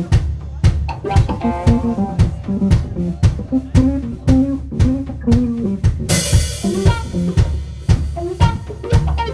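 Live rock band playing an instrumental passage: a drum kit keeps a steady beat under a moving bass line and electric guitar, with a cymbal crash about six seconds in.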